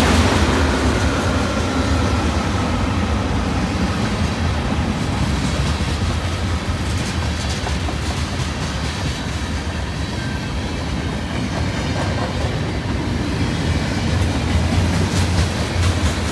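Norfolk Southern freight train's cars rolling past: a steady rumble of wheels on rail, with the clickety-clack of wheels crossing rail joints.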